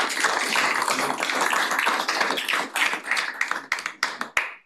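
Applause from a small group of people, thinning out to a few scattered claps and stopping near the end.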